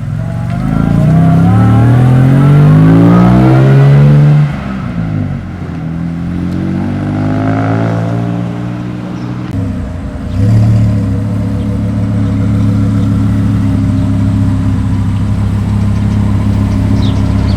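Car engines accelerating hard: a loud rising rev that drops off suddenly about four seconds in, a second rising rev, then a steady engine note starting abruptly about ten seconds in.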